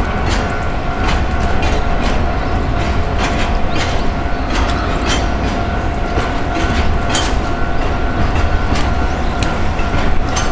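Freight train of red hopper wagons rolling past at low speed: a steady heavy rumble, wheels clicking over rail joints, and a steady high whine over it.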